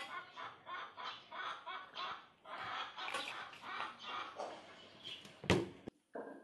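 Hens clucking in irregular bursts, with a single sharp knock about five and a half seconds in.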